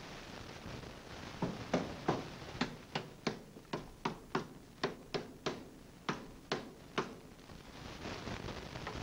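A quick run of about fifteen sharp taps or knocks, roughly three a second, starting about a second and a half in and stopping about seven seconds in.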